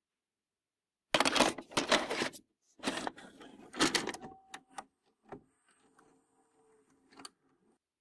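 VHS cassette and video cassette recorder mechanism: loud plastic clattering and clunks, then several sharp clicks, and a faint motor whir with one more click near the end as the deck's loading mechanism runs.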